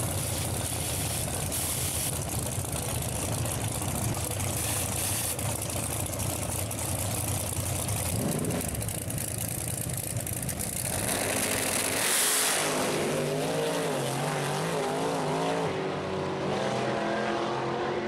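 Two drag-racing cars' big V8 engines running loudly side by side at the starting line, then launching hard about twelve seconds in, their engine notes surging and wavering in pitch as they run off down the strip.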